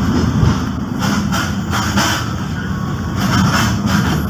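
Running noise of a train heard from on board: a steady low rumble of wheels on track and the train's engine, with some lighter rattles in the middle.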